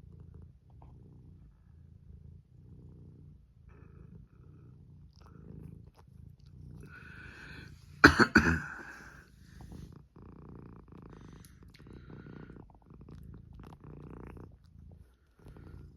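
Domestic cat purring close up, the purr rising and falling with each breath about once a second. A brief loud noise cuts in about eight seconds in.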